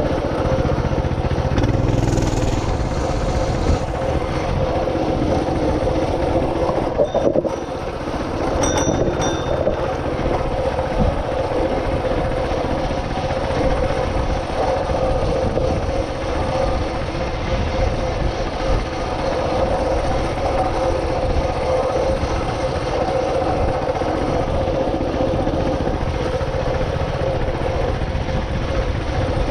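Small engine running steadily with a constant hum, over the rumble and rattle of riding along a dirt and gravel trail. A brief high squeak about nine seconds in.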